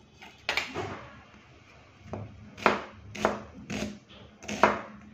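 Chef's knife slicing a red onion on a plastic cutting board: a series of about seven sharp knocks as the blade strikes the board, coming roughly every half second in the second half.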